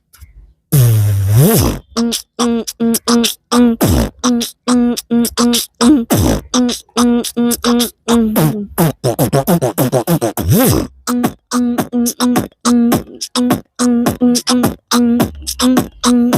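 Beatboxing, imitating a DJ remix by mouth: fast, even kick-and-snare beats over a steady hummed note, with several swooping DJ-effect glides. It starts about a second in after a brief pause.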